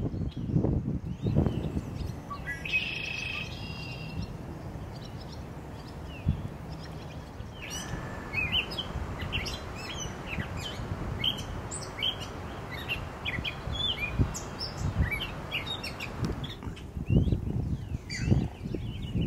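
Birds chirping: one short call with several pitches about three seconds in, then many short high chirps in the middle stretch over a steady outdoor hiss. Low rustling thumps at the start and again near the end.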